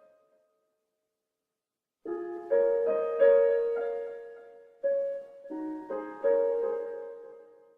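Background music on solo piano. It is silent for about the first two seconds, then slow chords and notes start sharply and ring away before the next ones.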